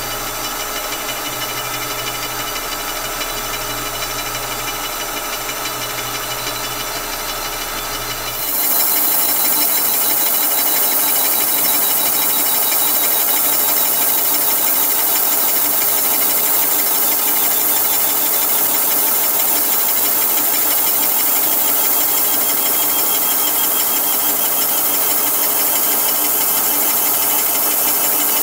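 A Kearney & Trecker horizontal mill feeding a brand-new slitting saw blade steadily through an aluminum water neck: a continuous, even cutting sound. About eight seconds in it becomes louder and brighter, with more hiss.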